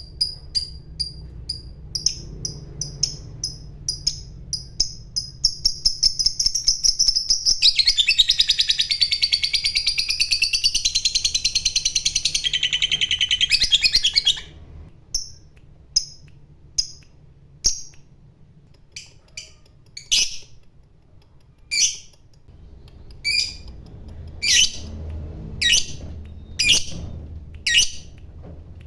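Lovebird calling: a run of sharp high chirps that quickens, then breaks into about six seconds of continuous rapid chattering trill, the long 'ngekek' song prized in fighter lovebirds, which cuts off suddenly. Single chirps follow, spaced a second or two apart.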